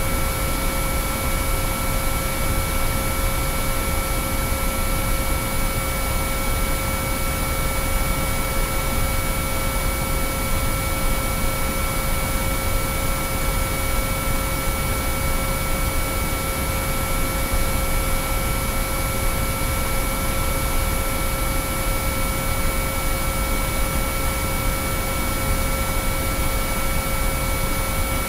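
Binaural-beat track of pure sine-wave tones: several steady pitches held unchanged over a constant bed of white-noise hiss.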